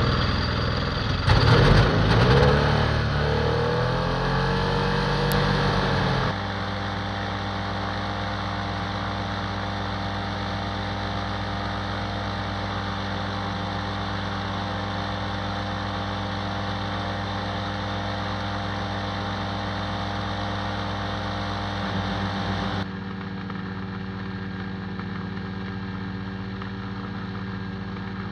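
Stratus IIB microlight's engine and propeller running just after start-up, the pitch swinging up and down for the first few seconds as it settles, then running steadily. The sound changes abruptly twice, about six seconds in and near the end.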